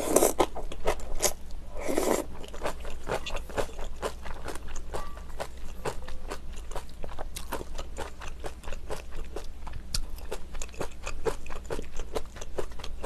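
Close-miked chewing of kimchi, a quick run of crisp crunching clicks with wet mouth sounds, as in eating ASMR.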